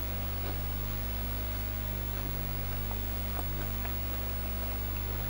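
Steady low mains hum with a constant hiss, and a few faint soft clicks of closed-mouth chewing.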